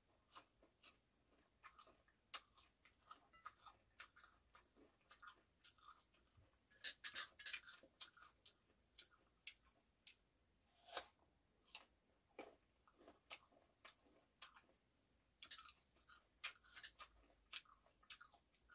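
Close-miked chewing of firm, crunchy persimmon slices: faint scattered crunches and wet mouth clicks, with louder clusters of bites about seven, eleven and sixteen seconds in.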